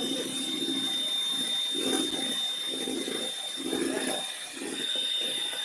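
Electric hand mixer running with its whisk beaters in a stainless steel bowl, a steady high motor whine over the uneven churning and scraping of the beaters in the mixture.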